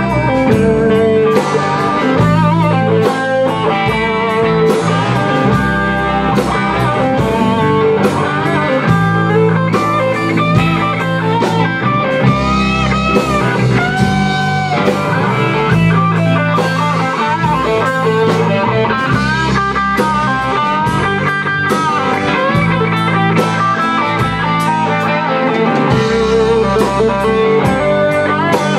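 Rock band playing live with two electric guitars, bass guitar and a drum kit, and no singing. A lead guitar line bends notes up and down and holds one long note about halfway through, over a steady drum beat.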